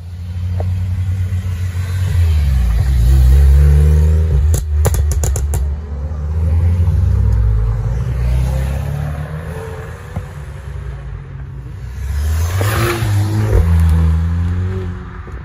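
Performance cars pulling away one after another, a Renault Mégane RS and then a Volkswagen Golf, engines revving hard with the pitch rising and falling. A quick run of sharp exhaust cracks comes about five seconds in.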